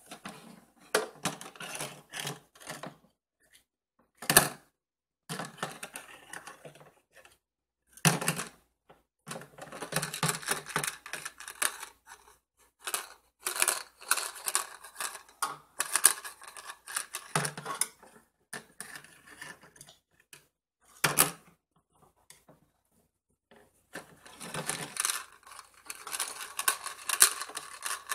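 Plastic toy cookware and a plastic spatula clattering and scraping on a toy kitchen's stovetop, in irregular clicks and scrapes with a few sharper knocks and short pauses between.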